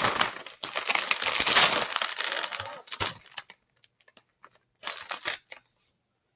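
Plastic cookie packaging crinkling as it is handled and opened, in a long stretch of rustling and then a second short burst about five seconds in.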